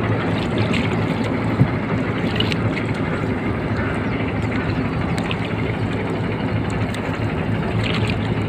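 An engine running steadily while under way: a low, even drone with no change in speed.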